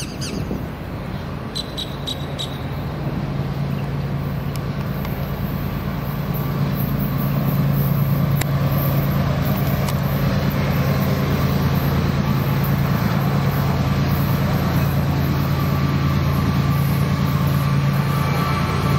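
Diesel freight locomotives approaching, their low engine drone growing steadily louder over the first seven seconds and then holding.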